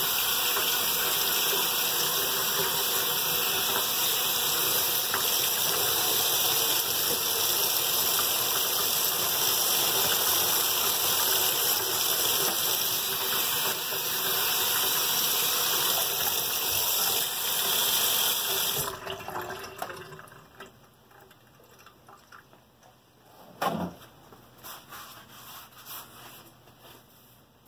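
Kitchen faucet running steadily over a printing plate held in a stainless steel sink as the ink is rinsed off, cut off suddenly about two-thirds of the way through. Quiet handling and dripping follow, with one sharp knock near the end.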